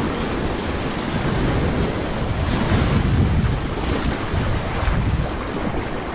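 Wind buffeting the microphone over the steady wash of small waves breaking on a sandy beach, with a heavy low rumble.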